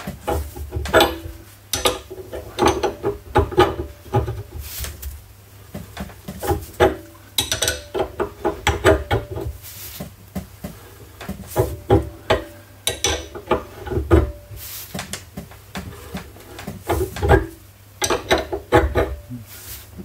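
Metallic clicking and clinking of a wrench turning the forcing screw of a tie rod end puller, which is drawing a splined wheel stud into a wheel hub. The clicks come in repeated bursts as the wrench is worked back and forth.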